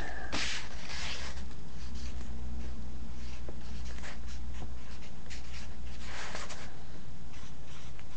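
Pen scratching on paper in short, irregular strokes as something is written out by hand, over a steady low hum.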